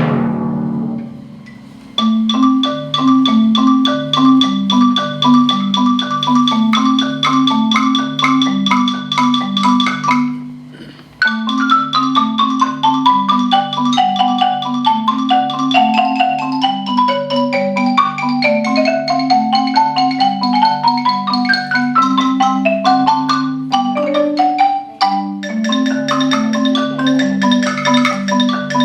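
Percussion ensemble on mallet instruments: a marimba plays a repeating low accompaniment pattern while higher bell-like mallet notes carry quick melodic runs above it. A drum hit rings away during the first two seconds, and the music breaks off briefly about ten seconds in before resuming.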